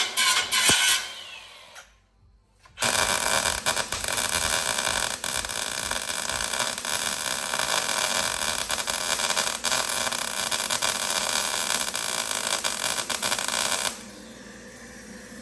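A power tool working on the trailer fender's steel plate. A short run stops about a second in, and after a brief pause the tool runs again, steady and loud for about eleven seconds, and cuts off near the end.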